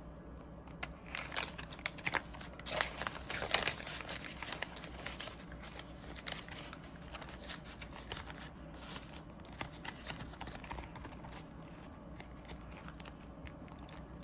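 Clear plastic binder pouch and paper banknotes crinkling and rustling as cash is handled and slipped into the pouch. The rustling is loudest and densest in the first few seconds, then thins to light scattered rustles and taps.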